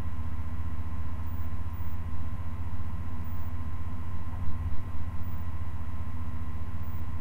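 A steady low hum with a faint, even whine above it, and a few soft knocks about four and a half to five seconds in as a metal laryngoscope blade is handled.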